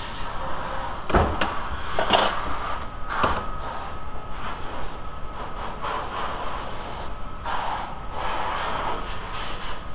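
A metal windshield wiper linkage being handled on a steel workbench: three sharp knocks in the first few seconds, then rubbing and shuffling handling noises.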